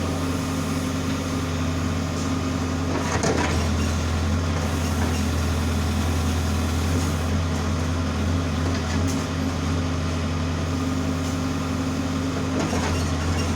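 Case 570T backhoe loader's diesel engine running at a steady speed, with a clunk about three seconds in and another near the end.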